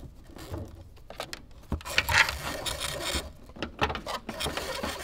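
Wiring harness being handled and routed through an engine bay bracket: irregular scraping, rubbing and short clicks of wire and plastic against the parts, loudest about two seconds in.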